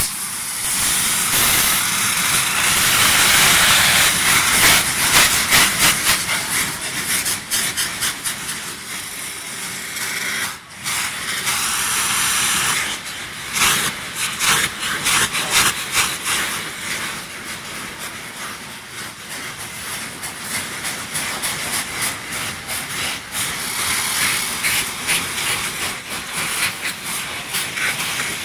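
Several hand-held saites, home-made cardboard gunpowder rockets, hissing hard as they spray sparks. Many quick crackles and pops run through the hiss, which dips briefly about ten seconds in before picking up again.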